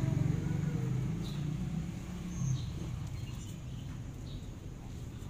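A motorcycle engine running at low revs, fading away over the first couple of seconds, with a few faint high chirps.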